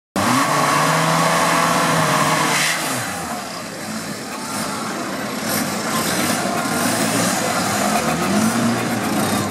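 Off-road trial buggy's engine working hard as it climbs over rocks. Its pitch holds steady, drops about three seconds in, then rises again near the end.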